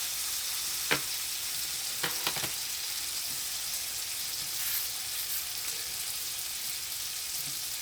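T-bone steaks sizzling in a frying pan over low heat, a steady hiss, with a sharp click about a second in and a few lighter clicks around two seconds in.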